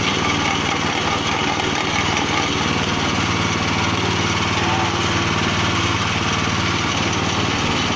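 Motor-driven waste grinding machine running steadily under load as it grinds material into a mash.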